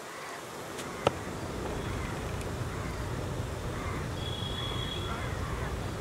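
A single sharp crack of a cricket ball striking a bat about a second in, over steady outdoor ground ambience with faint bird chirps and a brief high steady tone about four seconds in.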